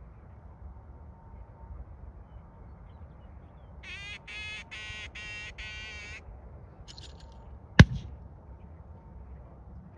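A duck call blown five times in quick succession, then about two seconds later a single sharp gunshot, the loudest sound. These are the gunners' call and shot that mark a thrown bird for a retrieving dog.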